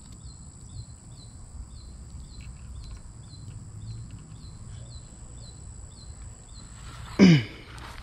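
Insects buzzing steadily at a high pitch, with a regular chirp about twice a second. About seven seconds in comes a short, loud call that slides down in pitch.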